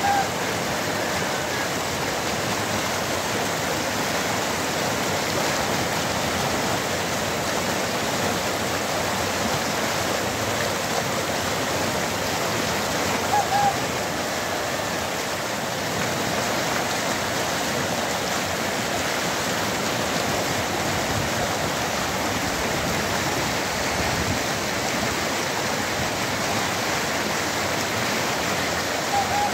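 Muddy floodwater rushing down a road and spilling over a concrete kerb in a steady, loud rush. A short high chirp sounds about halfway through.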